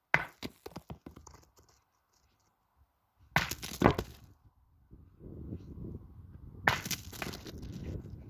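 Three pétanque shots about three seconds apart, each a sharp metallic clack of a thrown steel boule striking, followed by smaller knocks and rattles; the middle shot gives two clacks in quick succession. A low rustling runs underneath from about halfway through.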